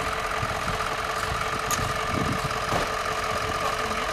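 Engine idling steadily, a constant hum with a low rumble.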